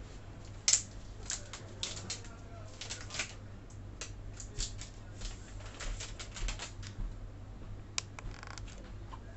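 Unboxing an iPhone 12 Pro Max: an irregular run of small clicks, taps and rustles from the box and its packaging being handled and opened, with a sharp click about two thirds of a second in and another near the end, followed by a short rasp.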